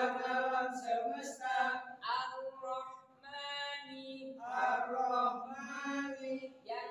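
A group of men reciting Qur'anic verses aloud together in a melodic chant, in short phrases with held notes.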